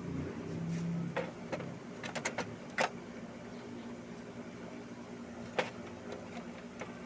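Several short, light clicks and taps of small parts being handled, over a steady low hum.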